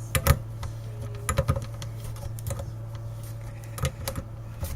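Scattered metallic clicks and taps from an adjustable spanner working the nut of a quarter-inch input jack socket on an amplifier's front panel. There is a sharp pair right at the start, a short cluster about a second and a half in, and single clicks near the end, over a steady low hum.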